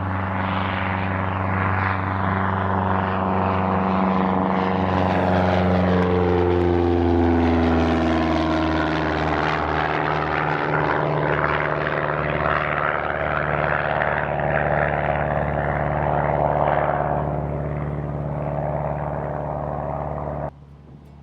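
Small propeller airplane taking off close by at full power. Its engine and propeller drone drops in pitch as it passes, then eases off slowly as it climbs away, until the sound cuts off suddenly near the end.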